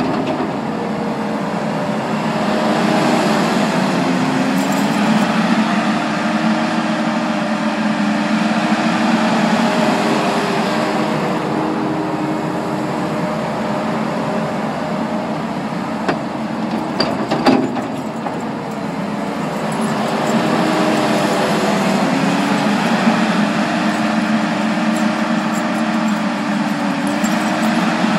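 Kubota SVL75 compact track loader's four-cylinder turbo diesel working under load, its engine pitch rising and falling as the operator throttles up to lift, dump and push into a pile. There is one sharp knock about two-thirds of the way through.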